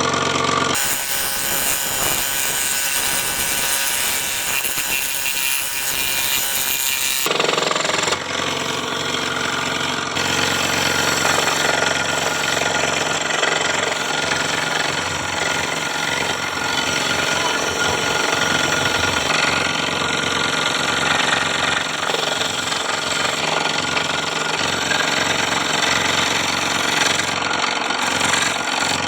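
A power tool running continuously on wood, with the sound changing abruptly about a second in and changing back about seven seconds in.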